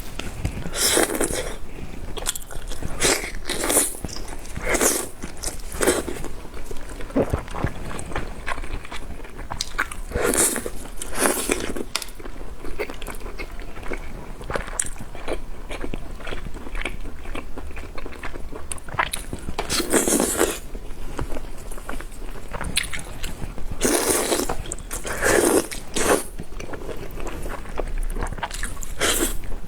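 Close-miked eating sounds of a person biting and chewing raw oysters in a spicy marinade, with irregular wet mouth noises, some short and some lasting about a second.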